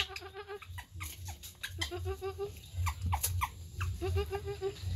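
Monkeys vocalizing: short, sharp rising squeaks, plus three bursts of rapid, stuttering calls, each about half a second long.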